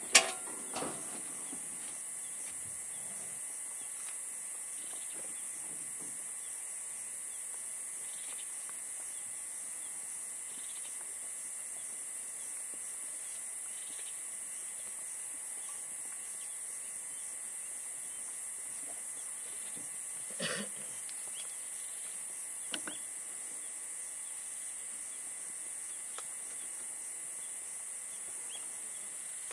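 Steady high-pitched buzz of insects in the bush, unbroken throughout. A sharp click right at the start is the loudest sound, and a short faint sound comes about twenty seconds in.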